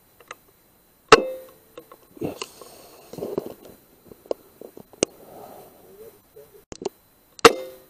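Two air rifle shots about six seconds apart, each a sharp crack followed by a brief ringing tone. Between them come irregular clicks and scuffling.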